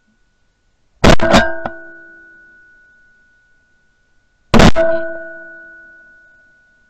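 Two shotgun shots about three and a half seconds apart, fired at flying ducks; the first has a second, slightly quieter bang right behind it. Each shot is followed by a metallic ringing that fades over about two seconds, the barrel ringing where the camera is mounted.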